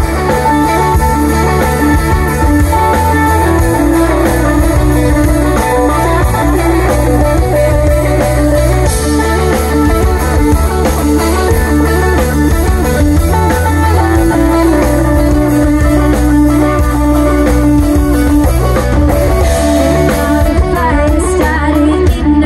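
Live rock band playing loudly through amplifiers in an instrumental stretch without vocals: electric guitar over bass guitar and drum kit.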